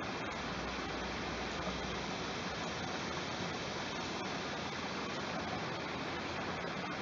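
Small waterfall spilling into a creek: a steady, unbroken rush of falling water.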